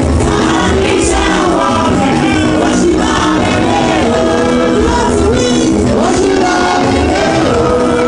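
Live Nigerian gospel music: a woman singing lead through a microphone and PA over a drum beat, with a choir of voices joining in.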